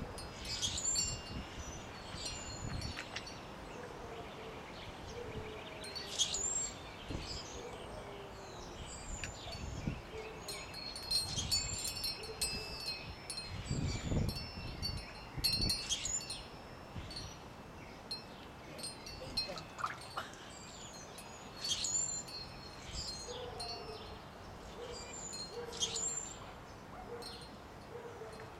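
Wind chimes ringing on and off in irregular clusters, with birds chirping.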